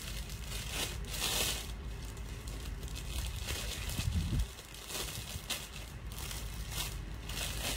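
Fabric rustling and crumpling as a pink blouse is handled, shaken out and pulled on over the arms, in irregular swishes. There is a short low bump about four seconds in.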